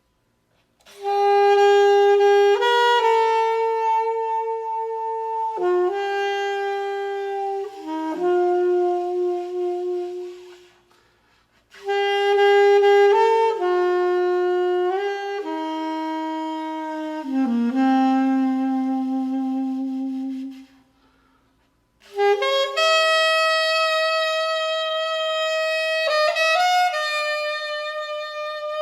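Solo saxophone playing a slow melody of long held notes, in three phrases separated by two brief pauses.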